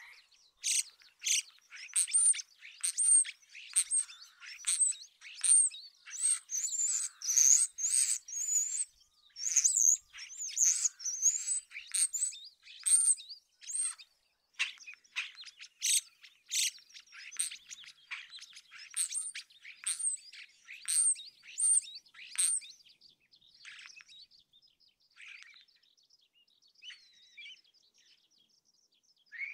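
Common starling singing: a rapid jumble of sharp clicks, rattles and high whistled notes that slur up and down. It turns softer and sparser for the last several seconds.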